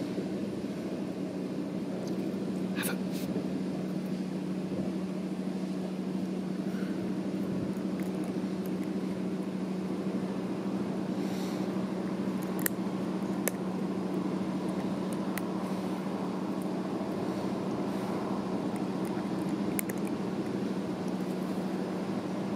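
A steady mechanical hum with one even low tone, and a few faint sharp clicks scattered through it.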